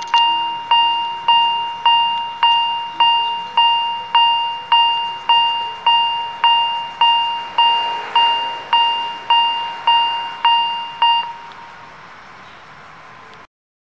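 Railway level-crossing warning bell ringing in an even rhythm, just under two strikes a second, each strike ringing out briefly. It stops about eleven seconds in, leaving faint background noise, and the sound cuts off near the end.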